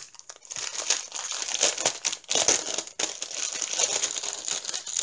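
Clear plastic bag of diamond painting drill packets crinkling as it is handled, in irregular crackles.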